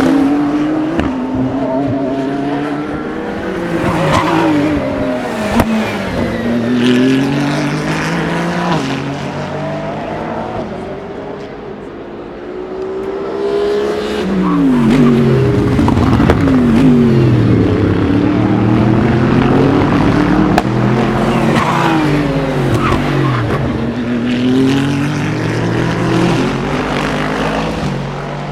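Several endurance race cars braking into a slow corner, their engines dropping in pitch through quick downshifts, then accelerating away with rising pitch. A second, louder group of cars comes through about halfway in.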